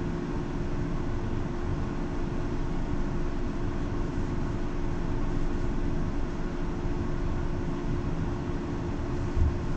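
Route bus heard from inside the cabin: steady engine and road noise with a held hum, and a single bump near the end.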